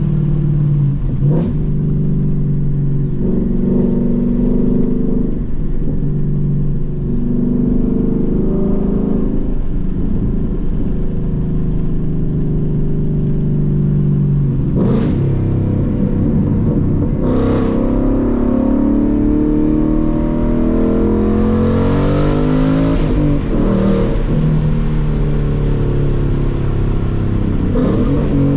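Ford Mustang GT's 5.0 V8 running through a muffler delete and Steeda H-pipe while driving, its note dropping and climbing with the revs. The revs climb steadily about two-thirds of the way through.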